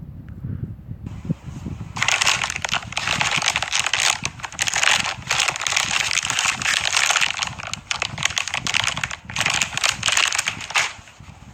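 Dense crackling, crinkling noise made of many fine crackles. It starts about two seconds in, breaks off briefly near nine seconds and stops shortly before the end.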